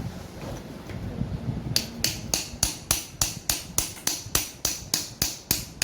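A hammer striking metal in a steady run of even blows, about three a second, each with a short metallic ring, starting a little under two seconds in.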